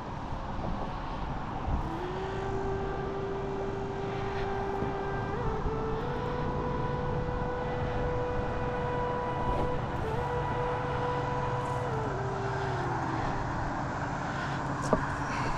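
A distant engine droning steadily. Its pitch rises about two seconds in, steps up a little higher a few seconds later, and drops back down near the end.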